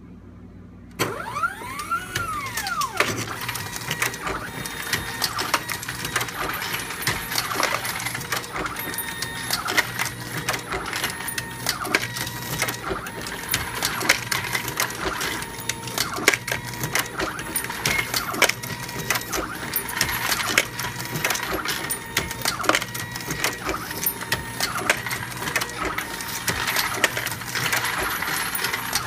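AmmoBot MK1 automated reloading press running 9mm Luger. It starts suddenly about a second in and then keeps up a continuous rapid clatter of clicks and clanks from the press and its feeders, over a steady motor whine.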